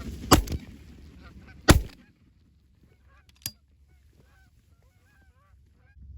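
Two shots from a 12-gauge over-and-under shotgun, about a second and a half apart. Geese then honk faintly, and there is a single sharp click about three and a half seconds in.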